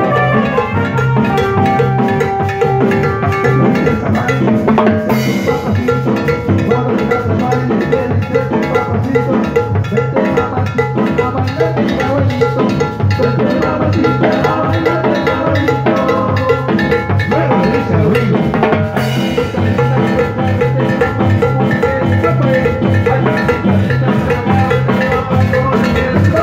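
Live Latin dance band playing an instrumental stretch, with timbales prominent over keyboard and electric bass and a steady, busy beat.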